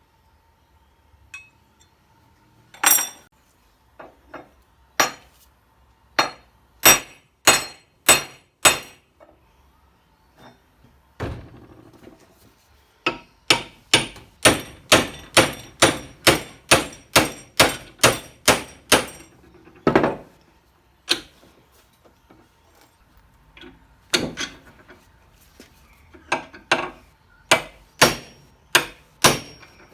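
Hammer striking metal, sharp ringing blows: a few scattered strikes, then a quick run of about two blows a second, then another run near the end.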